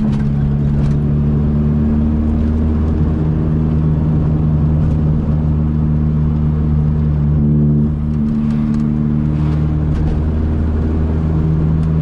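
Loud, steady exhaust drone of a lowered VAZ-2114 being driven, heard from inside the car, with a slight change in engine pitch about two-thirds of the way through.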